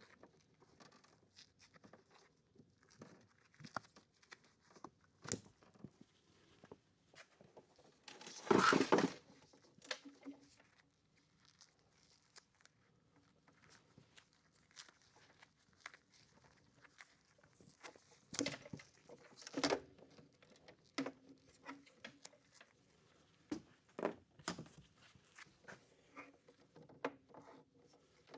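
Scattered small clicks, taps and rustles of hands working wires and tools, with one louder rustle lasting about a second, about nine seconds in.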